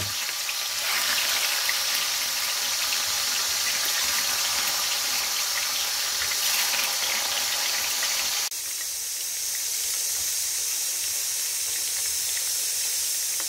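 Meatballs frying in hot oil, a steady sizzle with fine crackling. About two-thirds of the way through the sound changes abruptly to a smoother, higher hiss.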